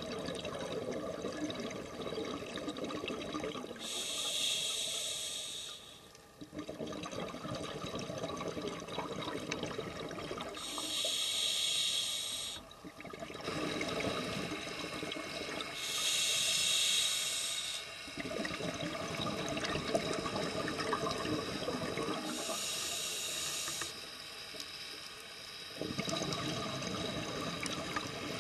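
Scuba diver breathing through a regulator, recorded underwater. A hissing inhale comes about every six seconds, four times, and each is followed by a long bubbling exhale.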